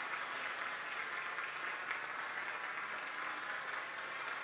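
An audience applauding steadily at the end of a ballet solo, heard in the competition recording as the dancer bows.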